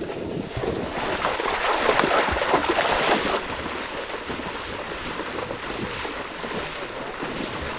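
Water splashing and sloshing as several people wade through shallow flooded marsh, loudest in the first half.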